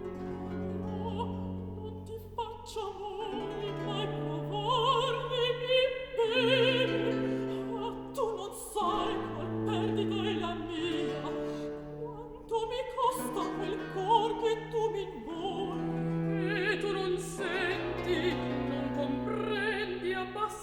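Operatic singing in Italian, a voice with wide vibrato over sustained instrumental accompaniment: classical background music.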